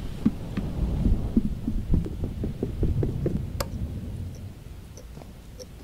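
Soundtrack of an animated short film: a low rumble with a run of dull thumps, a single sharp click, then faint, even ticks a little under two a second.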